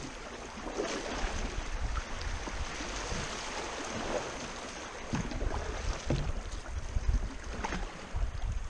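Shallow river current rushing and rippling around a moving canoe, with canoe paddles dipping and splashing in irregular strokes. A low, uneven rumble of wind on the microphone runs underneath.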